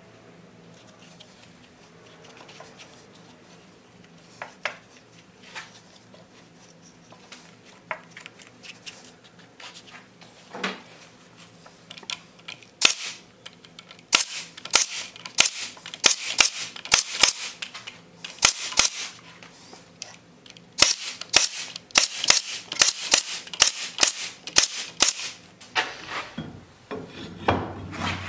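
Pneumatic staple gun firing into a rubber pad on a wooden brake block: a few single shots at first, then dozens of sharp snaps in quick succession from about halfway, stopping shortly before the end.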